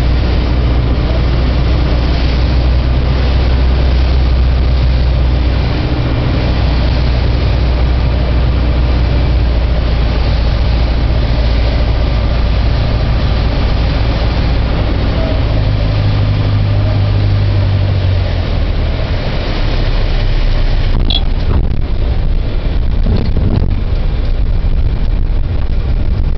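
Beechcraft Sundowner's four-cylinder Lycoming engine and propeller running with a steady, loud drone. Partway through the drone changes pitch. Near the end it thins out, with a few knocks.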